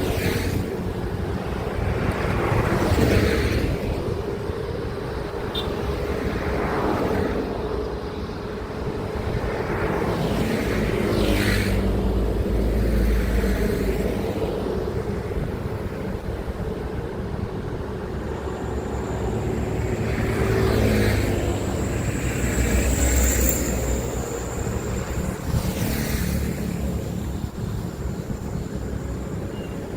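Highway traffic of heavy vehicles passing one after another: diesel trucks and buses running by, each pass-by swelling and fading with engine drone and tyre noise. A thin high steady whine joins past the middle.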